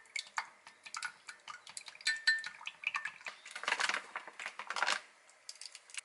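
Wooden chopsticks whisking eggs in a glass measuring jug, a quick run of clinks against the glass. About three and a half seconds in, a plastic crab-stick packet crinkles for a second or so.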